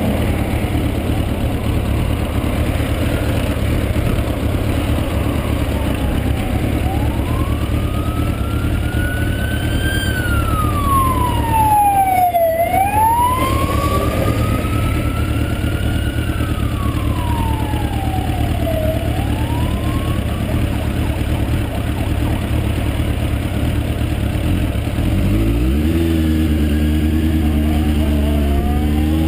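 Suzuki motorcycle engine idling steadily while a siren wails, slowly rising and falling in pitch for about fourteen seconds. Near the end the engine revs up as the bike pulls away.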